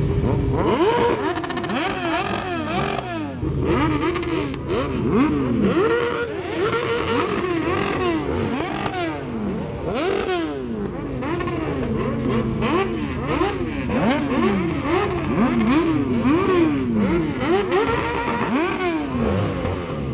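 A group of sport motorcycles riding off together at low speed, their engines revving up and down over and over in quick, overlapping throttle blips over a steady engine drone.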